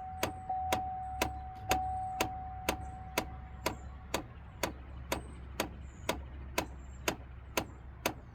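Clicking from behind the dashboard of a 2006 Chevrolet Trailblazer with the key on, evenly at about two clicks a second, which the owner takes for a faulty HVAC recirculation door actuator. A steady tone sounds along with it and fades out about four seconds in.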